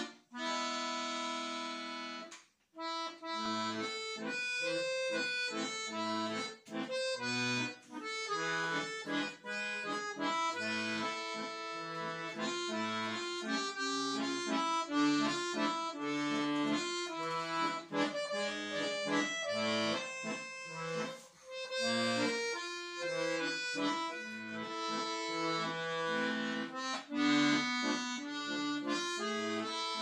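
Weltmeister chromatic button accordion (bayan) played solo: a held chord, a brief break about two and a half seconds in, then a melody over a steady left-hand bass-and-chord accompaniment.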